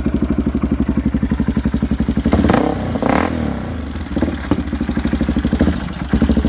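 1988 Yamaha XT350's single-cylinder four-stroke engine running through a SuperTrapp IDS2 exhaust. It idles with an even pulsing beat, is revved briefly about two and a half seconds in, then drops back to idle.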